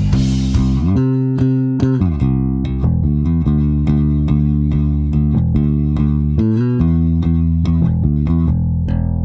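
Four-string electric bass played fingerstyle through a clean, compressed preset on a Line 6 HX Stomp: sustained notes with a couple of sliding pitch changes.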